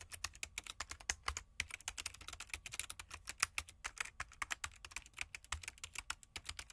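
Typing sound effect: a fast, uneven run of key clicks, several a second, that goes with text being typed out on screen letter by letter.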